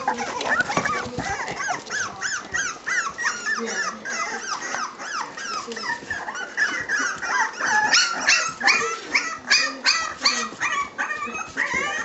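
A litter of three-week-old Staffordshire bull terrier puppies squeaking and whimpering: many short, high-pitched cries, overlapping several a second, louder in the second half.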